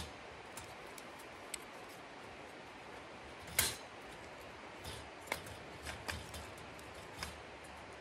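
Scattered light clicks and clinks of camping cooking gear being handled and set down, with one louder rustling scrape about three and a half seconds in, over a faint steady hiss.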